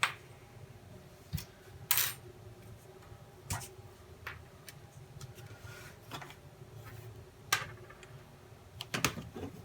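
Light, scattered clicks and taps of small model rocket kit parts (the motor mount tube and pieces) being handled on a work surface, a few seconds apart, over a faint steady hum.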